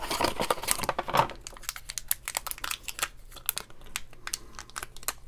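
Crinkling and crackling of a roll of Zots adhesive dots as a dot is peeled off its release liner: a run of small, sharp crackles.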